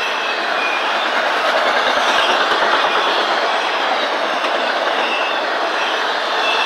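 Freight cars of an intermodal train rolling past at close range: a steady noise of steel wheels on rail with knocks over the rail joints. Now and then there is a faint high wheel squeal.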